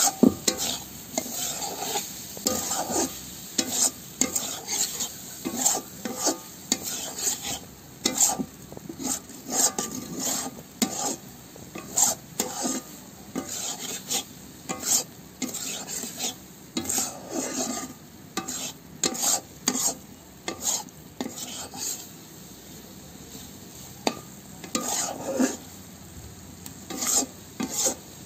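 Spatula stirring and scraping chopped goat liver around a kadai as it is dry-fried in oil. The frying sizzles steadily under irregular scrapes, several each second, that pause briefly now and then.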